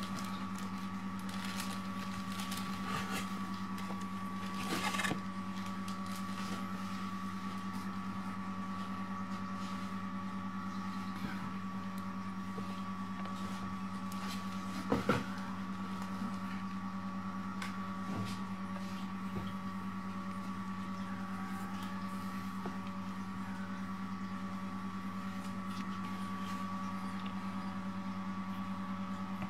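Steady machine hum with a constant low tone and a fainter higher whine, with a few soft knocks and scuffles from kittens playing on the floor, the sharpest a quick double knock about halfway through.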